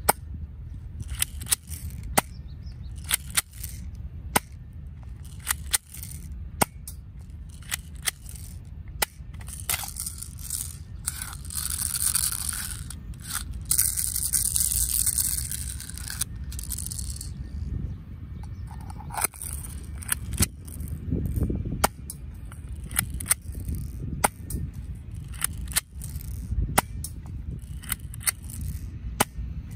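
Academy LH9 airsoft BB pistol fired shot after shot, each a sharp snap, many about a second apart. Around the middle the shots give way to a few seconds of hissing and handling noise.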